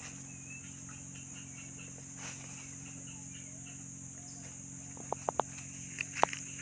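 Steady high-pitched drone of insects such as crickets or cicadas, with a few faint bird chirps. Near the end come several sharp clicks in quick succession.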